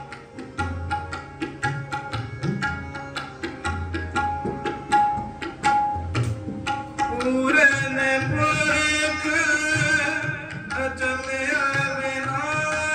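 Devotional music led by tabla: a steady pattern of sharp drum strokes over deep, booming bass strokes, with held melodic tones underneath. A higher, wavering melody joins about seven and a half seconds in.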